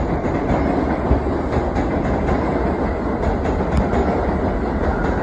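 New York City subway train running on the rails: a steady, loud rumble of wheels and traction gear, with faint irregular clicks of wheels over rail joints.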